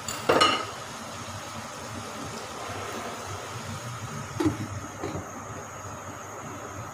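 Meatballs in masala sizzling in a frying pan over a high gas flame, a steady hiss, with a brief clink right at the start. About four and a half seconds in, a glass lid is set down on the pan with a short clatter and ring.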